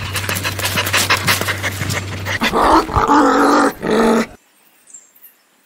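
Dog sound effects: rapid panting over a steady low hum, then a loud drawn-out dog vocalization lasting about two seconds that cuts off suddenly. It ends in near silence with a few faint high chirps.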